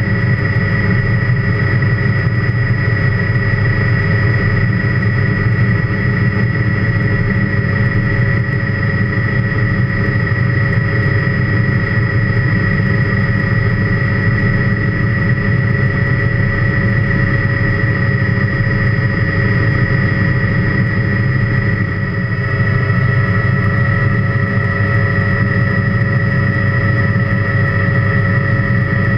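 Helicopter in flight heard from inside the cockpit: a steady drone of engine and rotor with a high whine held at one pitch. The sound dips and shifts slightly about two-thirds of the way through.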